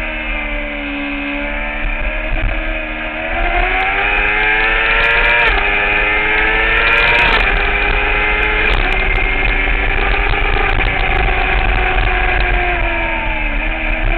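2009 Kawasaki ZX-6R's 599 cc inline-four engine at track speed, heard onboard over rushing wind. The engine note drops off, then climbs hard with brief dips at gear changes about five and seven seconds in. It holds high, then falls again near the end with a quick blip at a downshift.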